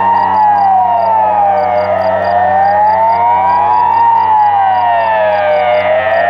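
Swiss civil-defence siren sounding the general alarm, a test: a loud wail rising and falling in pitch, about one rise and fall every four seconds. Two wailing tones overlap out of step with each other.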